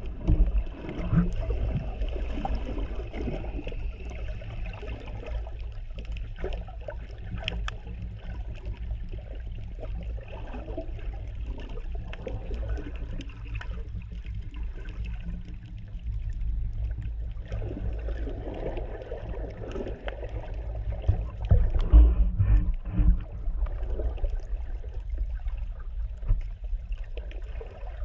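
Muffled underwater sound picked up by a GoPro inside its sealed Super Suit dive housing: a steady low rumble of water moving against the case, with scattered faint clicks, swelling louder about three-quarters of the way through.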